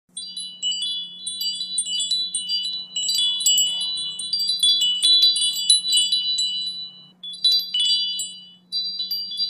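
Wind chimes tinkling: many high, overlapping ringing tones struck in quick succession, pausing briefly about seven seconds in and again near the end, over a steady low hum.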